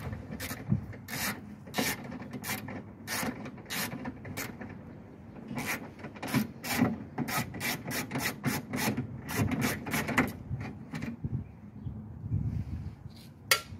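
Ratchet wrench with a 10 mm socket clicking in short, uneven strokes as it backs out the bolt holding a power window regulator inside a car door. The clicking stops a few seconds before the end, and one more sharp click follows.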